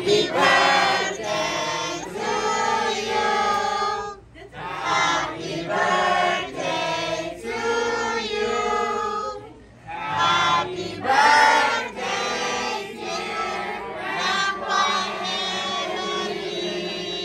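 A group of voices singing a birthday song together, in phrases broken by short pauses about four and ten seconds in.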